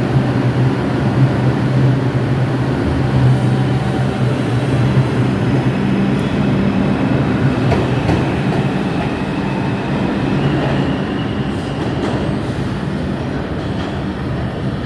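New York City subway train of the R142 family moving through the station, a dense steady rumble with a low hum that eases off gradually toward the end.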